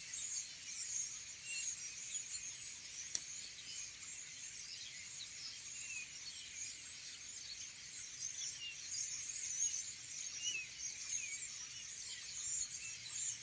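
A chorus of many small birds twittering and chirping, with one sharp click about three seconds in.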